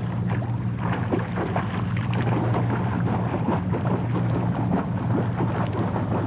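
Irregular water splashing as a swimmer kicks and pushes an inflatable raft through the water, over a steady low hum.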